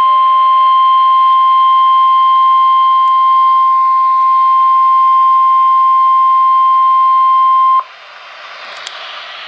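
NOAA Weather Radio warning alarm tone: one loud, steady, single-pitch beep that cuts off abruptly about eight seconds in. It leaves only faint radio hiss. The tone signals that a warning is about to be broadcast.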